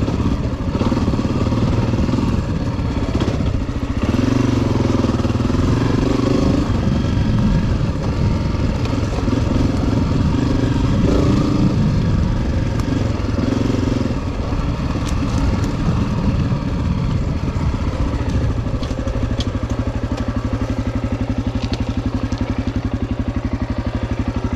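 Honda CRF250F's single-cylinder four-stroke engine running as the trail bike rides, its revs rising and falling with the throttle, with some clatter from the bike. In the last few seconds it settles to a steady idle.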